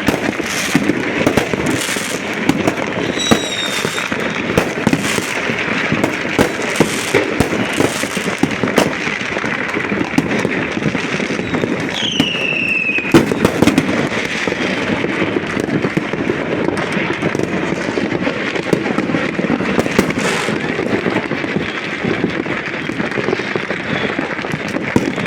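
Many fireworks and firecrackers going off at once, a dense, continuous crackle of pops and bangs. Two falling whistles cut through, one a few seconds in and another about halfway.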